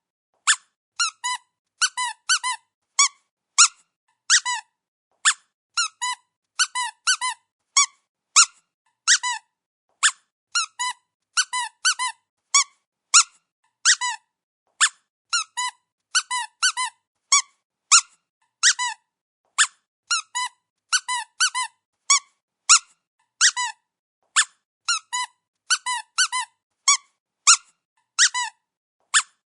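Squeaky dog toy being squeezed over and over: short, high squeaks coming singly or in quick pairs and threes, about one to two groups a second, with short silent gaps between.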